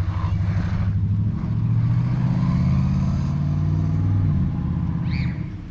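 Amoril 1/14 scale RC buggy on a test run, its electric motor whining up in pitch under throttle, heard over a loud low drone that steps up about a second in and dies down after about four and a half seconds.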